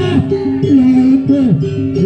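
Jaranan Buto accompaniment music: a loud melody line holding notes and sliding between them, over drum and gong-like background.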